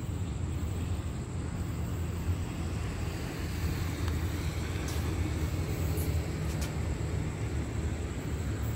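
A train rolling past the platform: a steady low rumble, with a few faint clicks about five and six seconds in.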